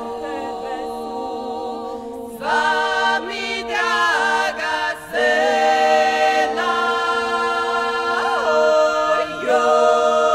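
A cappella vocal group in Dalmatian klapa style holding long chords without words, several voices in close harmony sliding together to each new chord.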